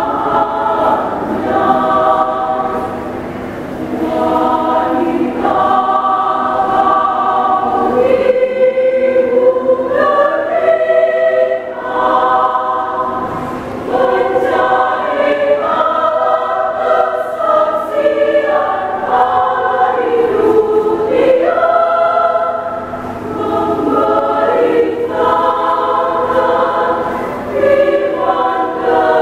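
Women's choir singing a hymn in parts, in continuous phrases with short breaks between them.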